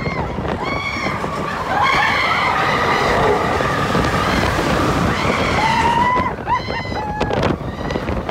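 Roller coaster riders screaming and whooping over the rumble of the train on the track and wind buffeting the microphone. The screams thicken into a sustained chorus about two seconds in, and a single long yell is held near the end.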